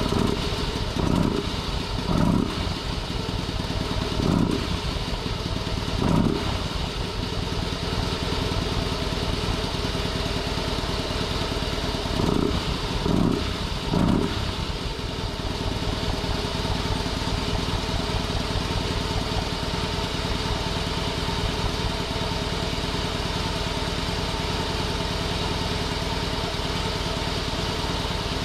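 Harley-Davidson Heritage Softail Classic V-twin idling through its home-modified muffler, packed with a pipe and sound-absorbing material, with a few short throttle blips, four in the first few seconds and three more a little before halfway, then idling steadily. The owner finds it too quiet, probably quieter than stock, and judges that the exhaust now flows poorly.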